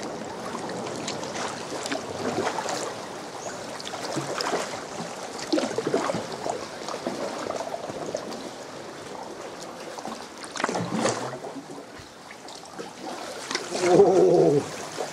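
Sea water lapping and trickling around a kayak, with irregular small splashes and drips from paddle strokes. A brief voice is heard near the end.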